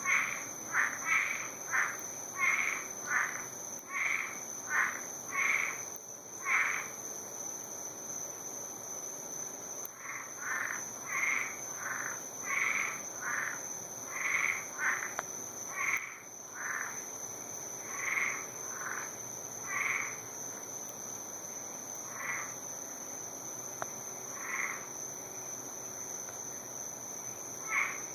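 Frogs croaking: short calls repeated in quick runs of about two a second, thinning to scattered single calls in the last third, over a steady high-pitched whine.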